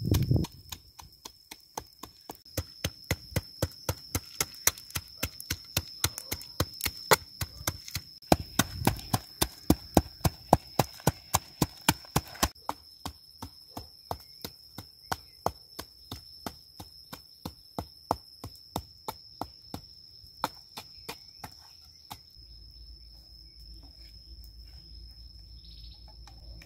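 Wooden pestle pounding in a mortar with a steady rhythm of knocks, which thin out and stop near the end. An insect keeps up a steady high drone throughout.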